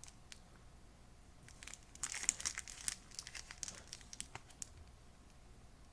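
Packaging being handled and crinkling, a cluster of quick crackles and sharp clicks from about two seconds in until near the end.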